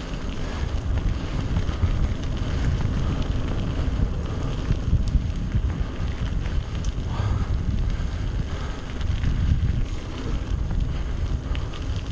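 Wind buffeting a GoPro Hero Session's microphone as a mountain bike is ridden at speed, heard as a heavy, gusting low rumble.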